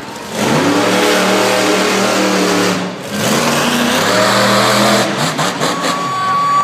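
Monster truck's big-block engine revving hard in two long pulls, with a brief dip between them. About five seconds in come several sharp crashes as the truck lands on the crushed cars, followed by a steady high tone.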